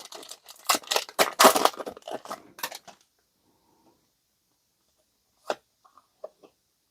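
Foil trading-card booster pack being torn open, a quick run of sharp rips and crinkles over the first three seconds. A single sharp tick follows a couple of seconds later, then a few faint taps.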